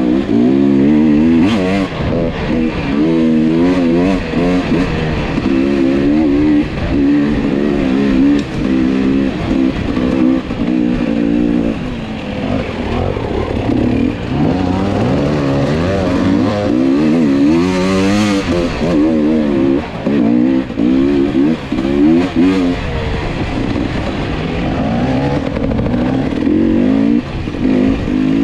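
Enduro dirt bike engine, heard from the bike being ridden, its revs rising and falling constantly as the throttle is worked along a forest trail, with occasional knocks from the bike over the ground.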